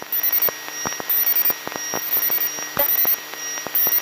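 Gyroplane cockpit audio heard through the headset intercom between radio calls: the engine as a faint steady hum, broken by irregular sharp clicks and short bursts of high-pitched electronic chirping and static.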